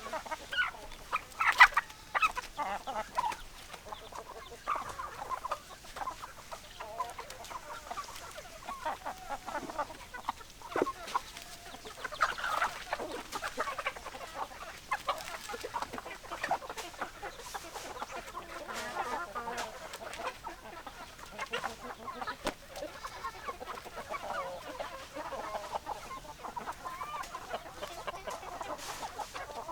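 A flock of hens clucking, many short overlapping calls throughout, loudest about a second and a half in.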